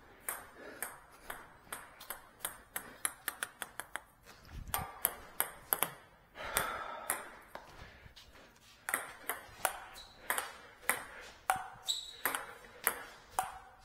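Table tennis ball clicking off bats and table during play: a run of sharp ticks, several a second, that pauses for a couple of seconds mid-way and then resumes.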